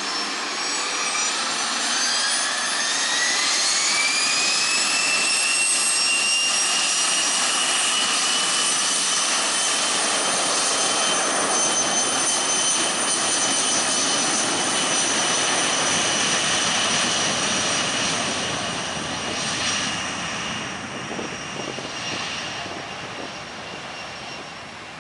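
Jet aircraft engines spooling up: a high whine rises over the first few seconds, then holds steady over a loud rushing roar at high power. Near the end it fades as the aircraft moves away.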